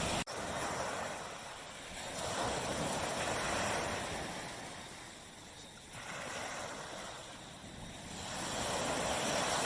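Tropical surf breaking and washing up a beach, the rush of water swelling and ebbing about three times. There is a brief break in the sound just after the start.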